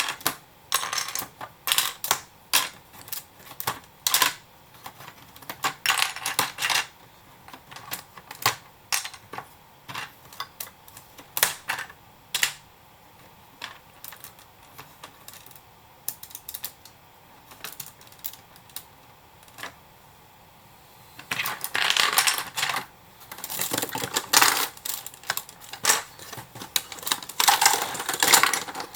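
Hard plastic Lego bricks and small computer parts clicking and tapping as they are handled and pulled apart. The clicks are scattered at first and sparse in the middle, then turn to a dense clatter of small hard pieces from about 21 seconds in.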